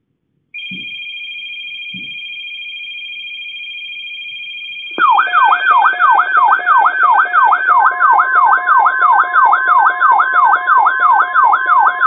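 Emergency Alert System relay tones: a steady high two-tone signal for about four seconds, then a sudden, much louder electronic alert tone that sweeps up and down about four times a second like a siren, with a steady tone joining it.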